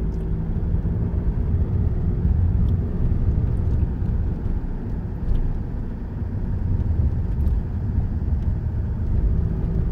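A car driving through town streets: a steady low rumble of engine and road noise, with a few faint ticks.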